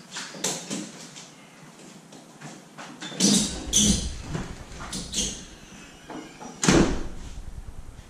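Irregular knocks and clunks from work on a Jeep Wrangler hardtop. A few light knocks come first, then a cluster about three to four seconds in and one sharp bang near seven seconds.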